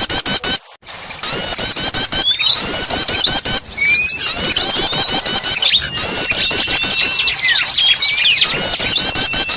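Bird-lure recording for small birds: a dense, noisy chorus of rapid, repeated high chirps and twittering calls, many overlapping, with a brief break just under a second in.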